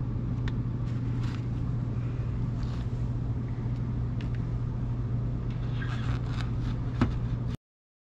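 Steady low hum of a running air handler, with faint scrapes and handling clicks and one sharper click about seven seconds in. The sound cuts off abruptly near the end.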